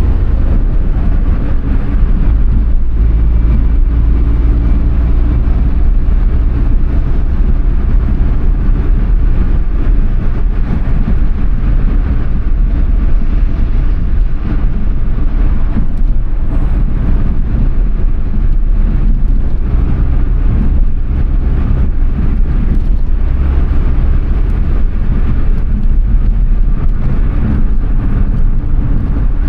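Suzuki Alto Works (HA11S) kei car being driven, its small turbocharged three-cylinder engine running steadily under heavy road and wind noise. The low rumble holds steady throughout.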